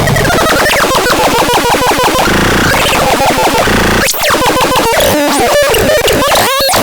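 DAZAX synthesizer playing harsh, chaotic electronic tones with sliding, wobbling pitches over fast stuttering pulses, changing abruptly about four seconds in.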